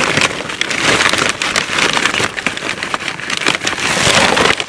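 Charcoal briquettes pouring out of their bag into a fire ring, a dense, continuous clatter of many small lumps knocking against one another as the bag is tipped and shaken.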